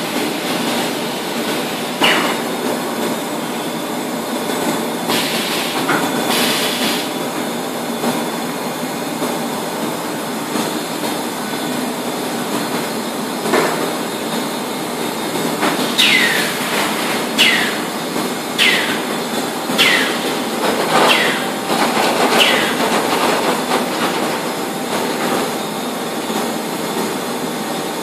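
Automatic bagging and vacuuming line running: a steady din of conveyors and drive motors, with a couple of short hissing bursts early on and a series of short, sharp squeals falling in pitch, about one a second, in the second half.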